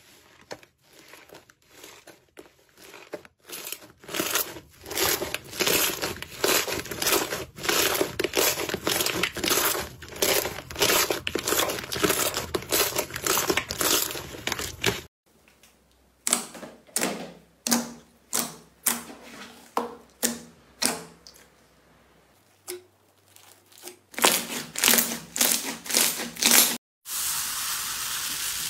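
Hands kneading and squeezing thick slime in a bowl: a dense run of crackling, popping squelches that gives way, about halfway through, to slower separate squishes. Near the end a steady fizzing crackle starts as a hand presses into another slime.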